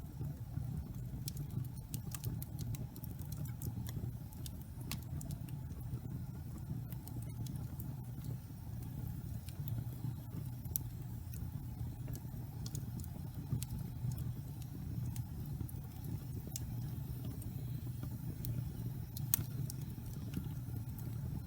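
Log fire burning: a steady low rumble of flames with frequent small sharp crackles and pops from the wood, one louder pop near the end.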